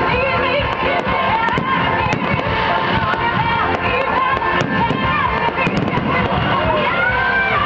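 Pop song with singing played loud over a sound system, with frequent sharp firework bangs and crackles through it.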